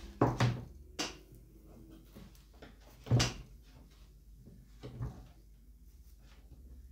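About five knocks and bumps from a polystyrene foam incubator box being handled as a small fan is pressed into place on it, the loudest about three seconds in.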